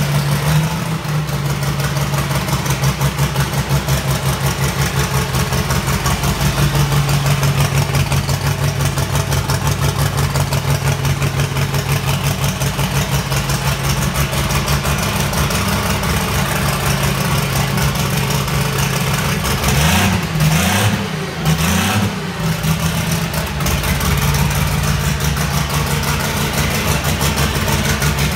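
Turbocharged methanol-burning pulling-tractor engine running loud and steady at idle on its first fire-up. About twenty seconds in it is blipped a couple of times, the pitch rising and falling, then it settles back to a steady idle.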